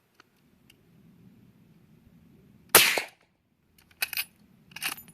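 A suppressed Mossberg 464 lever-action .30-30 rifle fires once, a little under three seconds in, with a brief tail after the shot. Near the end the lever is worked, two sharp metallic clacks about a second apart with a light ringing.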